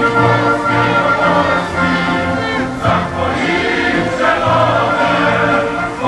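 Choir singing a slow song, with chords held for a second or two at a time.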